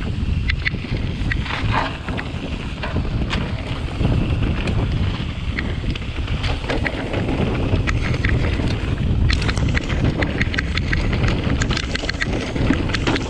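Wind buffeting the microphone of a mountain bike's handlebar camera as the bike rolls down a stony dirt trail, with tyres crunching over loose stones. Frequent sharp clicks and rattles from the bike and stones come through the rumble, thickest in the second half.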